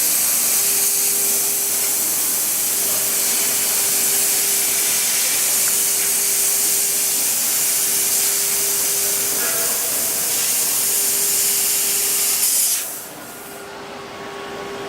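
CNC cutting machine running with a steady, high hiss and a constant hum, the hiss cutting off sharply about 13 seconds in.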